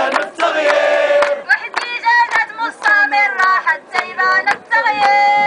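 A woman chanting a protest slogan through a handheld megaphone in a sung, melodic call, in short phrases with a long held note near the end.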